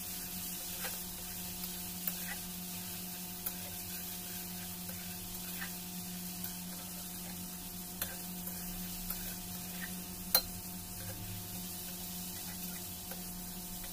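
Prawns sizzling as they shallow-fry in hot oil in a metal kadai, a steady frying hiss over a low hum. A steel spatula turning them clinks against the pan now and then, sharpest about ten seconds in.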